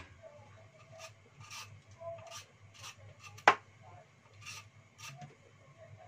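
Lotus root skin being scraped off with a hand-held blade in short repeated strokes at an uneven pace, with one sharp click about three and a half seconds in.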